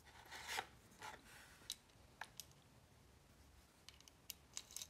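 Faint clicks and short rubs of small metal lock parts being handled: the Avocet ABS lock's core, housing and key. There are a few scattered clicks, then a quick cluster of them near the end.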